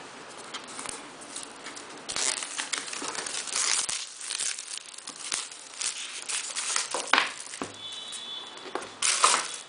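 Packaging crinkling and rustling as a tablet is unboxed. The crackly rustle is heaviest a couple of seconds in, with short flurries again later.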